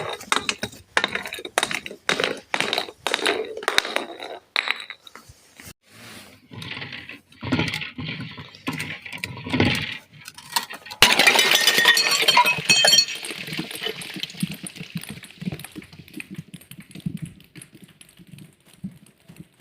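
Objects being crushed: a quick run of sharp cracks and crunches, then slower, heavier crunching. About eleven seconds in there is a loud burst with a bright, glittering ring that fades into quieter crackling.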